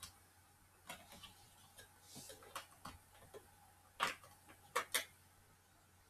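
Faint scattered clicks and taps of a DDR3 SO-DIMM laptop RAM module being handled and pushed into its slot in an Acer Aspire E1-570, with the sharpest clicks about four seconds in and two more close together about a second later.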